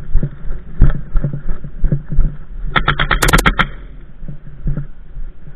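An airsoft rifle fires a short rapid burst of sharp clicks about three seconds in, over irregular thumps and rustling handling noise.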